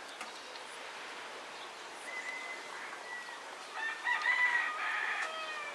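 A rooster crowing twice: a fainter call about two seconds in, then a louder, longer crow from about four seconds in that falls slightly in pitch toward its end.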